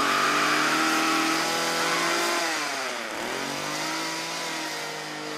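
Sustained distorted noise and effects from a brutal death metal track: several held, screeching tones with no drumbeat. About three seconds in they dive in pitch and swoop back up.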